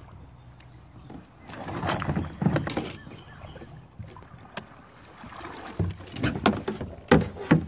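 Water splashing as a man climbs out of a plastic kayak and steps into a shallow river, a rushing swash about one and a half to three seconds in, then a few sharp splashes and knocks near the end.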